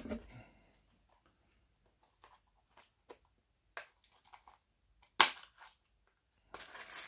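Small kit parts and plastic packaging handled on a workbench: scattered light clicks and crinkles, with a sharp clack about five seconds in and a smaller one just after, then rustling near the end.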